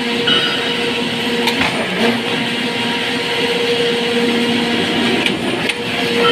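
Surface grinder running, its abrasive wheel grinding a steel plate wet with coolant: a steady hum under a rough grinding hiss, with a short higher-pitched whine about half a second in.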